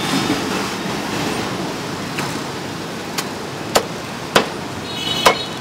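Five sharp knocks, about two seconds in and then every half-second to second, of a cleaver chopping roasted meat on a thick chopping block, over a steady rumble of street traffic.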